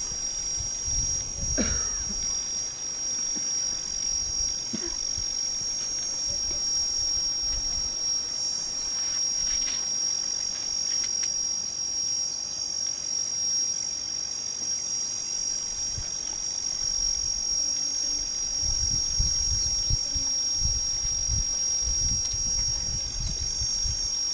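Steady, high-pitched chorus of insects trilling without a break, with low rumbles near the start and over the last few seconds.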